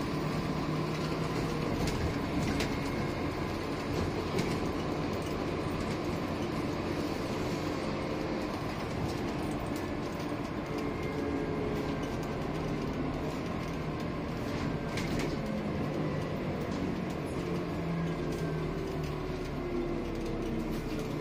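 Interior of a Scania N230UD double-decker bus on the move: its 9-litre five-cylinder diesel and drivetrain running under a steady rumble of road noise, with a faint whine that slowly rises and falls in pitch as the bus speeds up and slows. A few brief rattles from the body and fittings.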